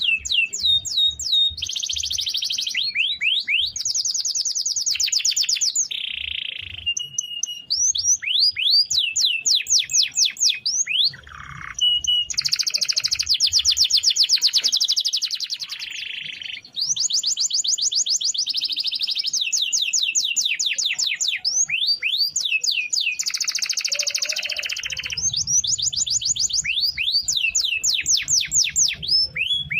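Domestic canary singing a long, almost unbroken song. Runs of quick sweeping notes alternate with fast rolling trills, with only a couple of brief breaks.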